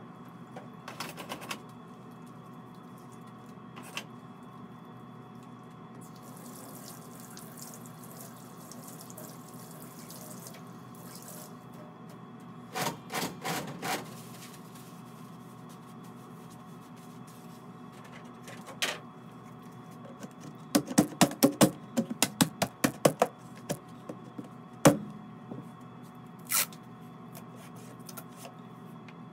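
Water running briefly from a sink tap, then a quick run of loud, sharp plastic snaps as a lid is pressed down around the rim of a plastic glaze bucket, followed by a single knock.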